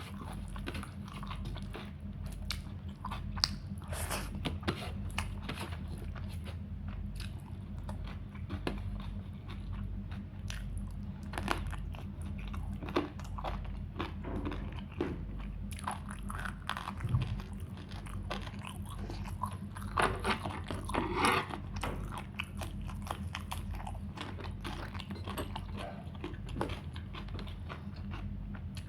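A person chewing and biting food close to the microphone, with frequent small crunches and mouth clicks, busiest about two-thirds of the way through. A steady low hum runs underneath.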